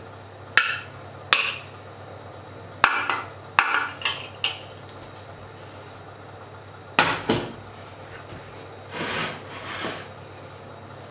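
A fork clinks and scrapes against a small stainless steel saucepan and a porcelain plate, a series of sharp knocks as food is scraped out. About seven seconds in, two louder metal knocks as the pan is set down, then two short sliding scrapes as a metal tray is pushed across the worktop.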